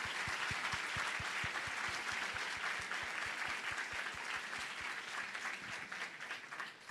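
Audience applauding, with dense clapping that thins out and fades away over the last couple of seconds.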